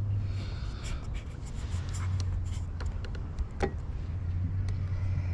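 Handling noise: light clicks and rubbing, with one sharper tick a little past halfway, over a steady low hum.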